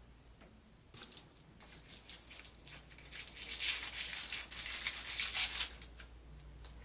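Small plastic toy-packaging wrapper crinkling and rustling as it is handled and opened: a dense run of crackles that starts about a second in and stops near the end.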